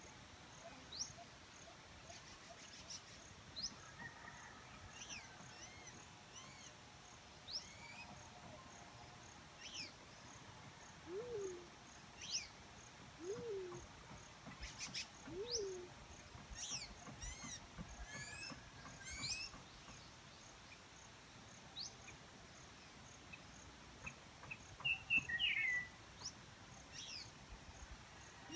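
Black-chinned fruit dove calling with low hoots, each rising then falling, three of them about two seconds apart near the middle. Other small birds chirp high and quick throughout, the loudest burst of chirps near the end, over a steady pulsing insect drone.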